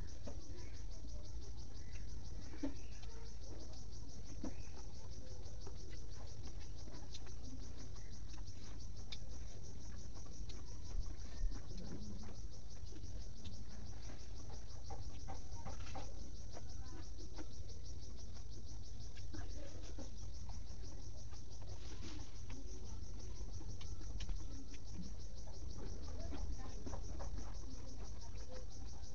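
A steady, high-pitched, rapidly pulsing insect trill runs throughout. Faint chewing and fingers picking rice off a banana leaf come through now and then.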